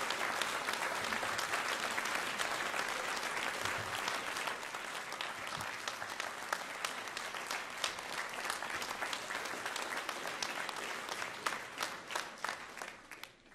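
Large audience applauding steadily, the clapping thinning to scattered claps and dying away near the end.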